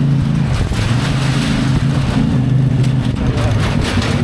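CFMoto 450MT's parallel-twin engine running steadily under way, with wind and road noise. The engine note drops briefly under a second in, then steadies again.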